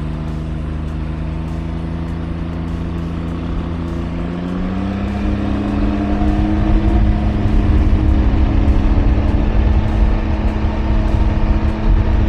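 Three-wheeled roadster's engine running under way, recorded on board, its note stepping up in pitch about five seconds in as engine speed rises. Low wind rumble on the microphone grows louder over the second half as the ride speeds up.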